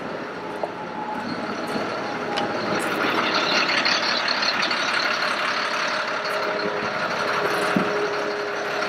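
2008 Ford F-750 bucket truck's engine running, a steady hum and hiss that grows louder a couple of seconds in, then holds steady.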